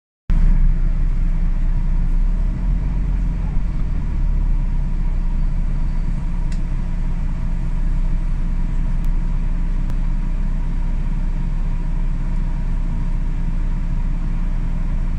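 Steady low rumble of city road traffic and vehicle engines, with a faint steady hum above it.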